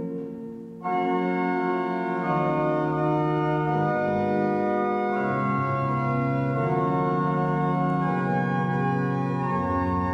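Organ playing slow, sustained chords that change every second or two. After a brief dip, a louder chord comes in about a second in, and deep bass notes join soon after.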